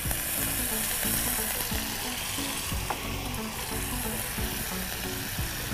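Hot oil and fried spice paste sizzling in a pan as water is poured in and stirred with a spoon, the sizzle strongest in the first two seconds.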